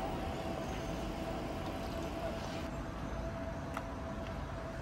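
City street traffic: a steady rumble of passing vehicles, with a thin steady whine running through it.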